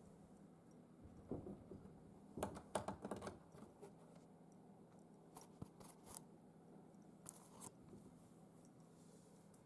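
Faint, scattered scratching and light rattling, with a dense cluster about two and a half to three and a half seconds in and a few more short scrapes later, as a cat paws at a sliding door.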